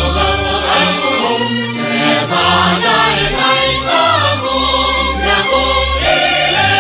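Choral music with orchestral accompaniment and sustained low bass notes, part of a Vietnamese revolutionary song about the South.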